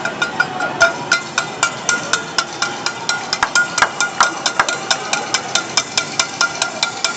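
Metal pots being banged in a cacerolazo protest: a rapid, uneven clanging of about five strikes a second, each with a metallic ring.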